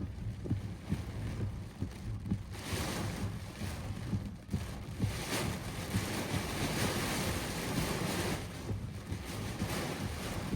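Strong storm wind buffeting the microphone with a low rumble, under a rushing hiss of wind-driven heavy rain that swells about two seconds in and eases near the end.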